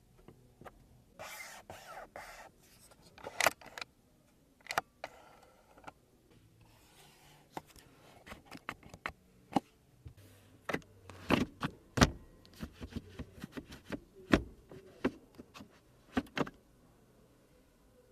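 A series of sharp clicks and knocks from buttons and interior trim being worked in a Lexus ES300h cabin, starting with a press of the seat-heater switch. There is a brief rustling slide about a second in.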